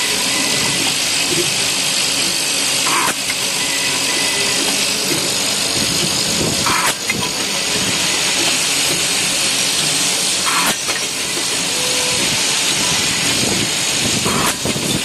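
Pneumatic automatic nut thread checking machine running: a steady hiss of compressed air, with a short burst of air about every four seconds, four times, as its valves cycle with each index of the table.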